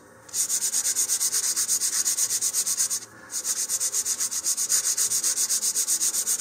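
150-grit sandpaper on a sanding tee rubbed quickly back and forth over a balsa fin sheet, about six rasping strokes a second, to smooth the surface. The strokes stop briefly about three seconds in, then carry on.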